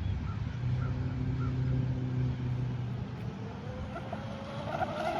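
Brushless electric motor of an RC Proboat Blackjack 26 catamaran on 3S whining as the boat runs at part throttle, the whine rising steadily in pitch from about three and a half seconds in as it speeds up, over low wind rumble. A few faint short honk-like calls sound in the first second or so.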